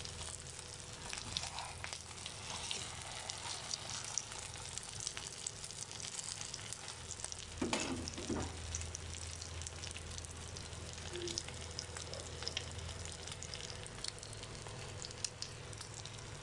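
Egg-coated chicken shami kababs shallow-frying in hot oil on a tawa, sizzling and crackling steadily. Two brief louder knocks come about halfway through.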